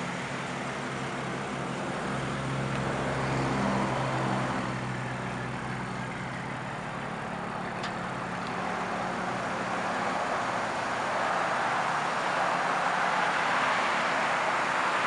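Road traffic going by: a low engine hum in the first several seconds, then a rising rush of tyre and road noise toward the end.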